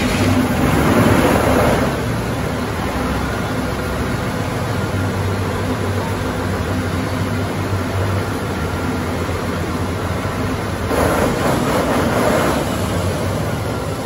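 A stationary engine running steadily with an even low beat, with a louder rushing hiss near the start and again about eleven seconds in.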